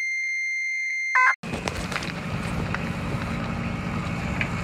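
A steady high test-tone beep for about a second, then a short, louder electronic glitch tone, and then an ATV's engine running on the ice race track with wind buffeting the microphone.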